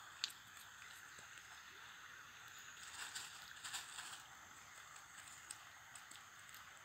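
Faint rustling and small scattered clicks of a nylon cast net being handled as fish are picked out of its mesh, over a steady faint high hiss in the background.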